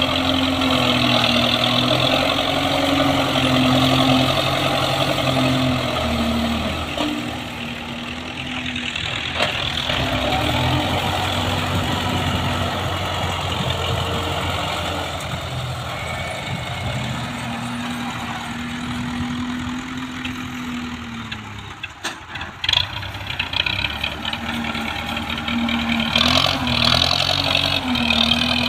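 Belarus tractor's diesel engine running under load while working a front dozer blade, its engine speed falling and picking up again several times. A few sharp knocks sound about three-quarters of the way through.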